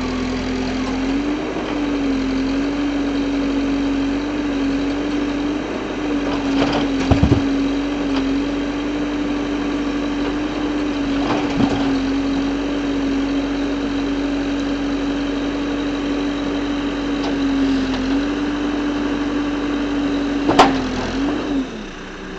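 An engine running steadily at one pitch, with a few sharp knocks; its sound drops away shortly before the end.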